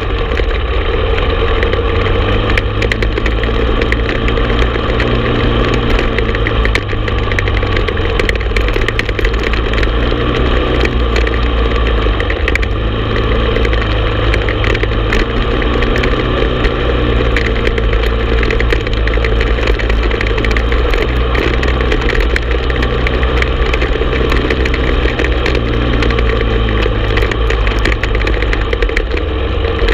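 Honda TRX450 ATV's single-cylinder four-stroke engine running steadily while riding, heard from the handlebars, with many small clicks and rattles throughout.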